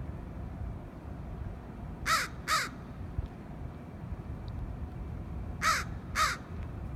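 A crow cawing in two pairs of short caws, the first pair about two seconds in and the second pair about three and a half seconds later.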